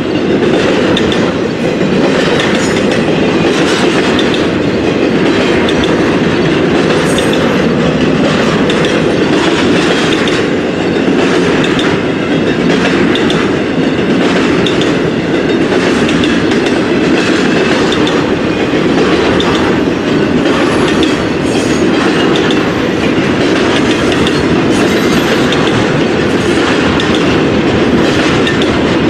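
Freight train's cars rolling past, a loud steady rumble with the wheels clicking over the rail joints.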